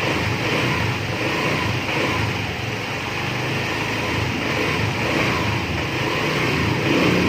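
Honda Click scooter's fuel-injected engine idling steadily on a newly fitted injector, a little louder near the end.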